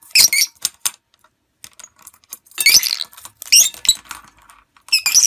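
A pink plastic clothespin with a metal ring clattering and jingling against the inside of a metal cooking pot as a small parrot tosses it about, in about four short bursts of clinks and rattles.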